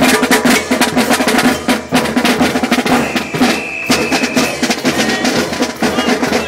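Marching band snare drum played close by: a rapid street cadence of sharp strokes and rolls. A high steady note is held for about a second and a half midway through.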